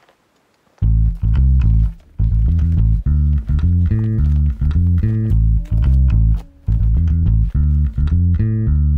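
Background music led by a loud bass guitar line with guitar, coming in about a second in after a moment of near silence.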